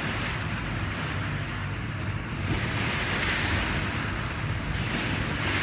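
A boat under way on choppy harbour water: wind buffets the microphone over a low, steady engine rumble and the rush of water.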